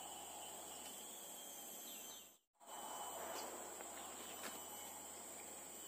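Steady, high-pitched chorus of forest insects with a constant background hiss. The sound cuts out for a moment about halfway through.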